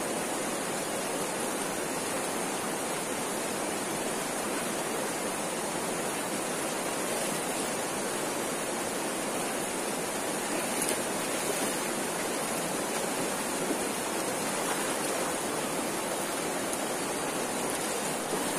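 Shallow river water rushing over rocks and riffles, a steady, even hiss of flowing water.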